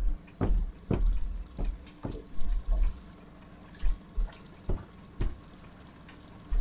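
Water slapping and splashing against the side of a small drifting boat in short, irregular splashes with low thumps, about a dozen in a few seconds.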